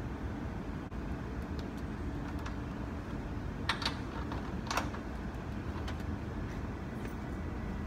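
A few light clicks and taps of hand tools against metal and plastic parts in a car's engine bay, the sharpest two close together around the middle, over a steady low background rumble.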